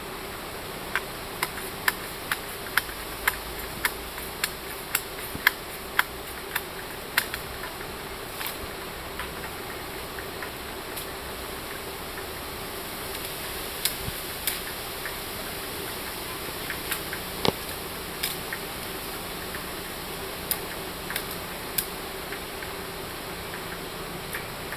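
Sharp knocks of bamboo being worked by hand, about two a second for the first several seconds, then scattered, over a steady low drone.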